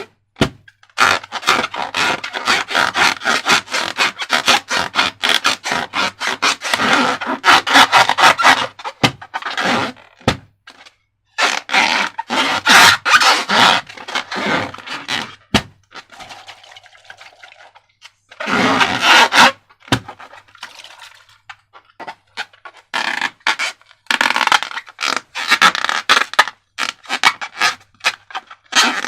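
Slime being worked and scraped: dense, rapid sticky crackling and scraping in long stretches, broken by a few short pauses.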